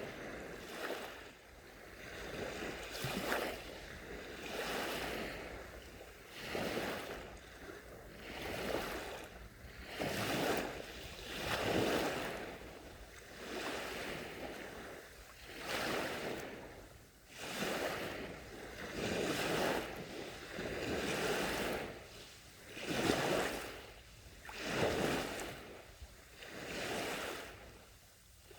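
Small, gentle sea waves rolling onto a beach, each swelling and washing back in a rhythmic surge of foamy hiss every second or two.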